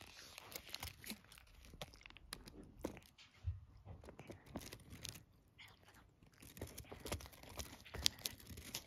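A cat chewing and biting a meat-stick treat held in its plastic wrapper: irregular small crunches and clicks of chewing, with the wrapper crinkling.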